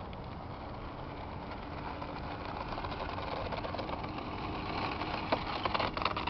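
Brushless electric motor and propeller of an RC Cessna 180 running at low power as the plane taxis over sand, the sound growing louder over the last few seconds. A few sharp clicks come near the end.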